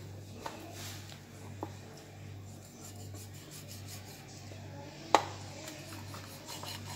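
Large kitchen knife scoring a whole snapper on a plate, with quiet rasping cuts through the skin. A few light clicks and one sharp knock about five seconds in.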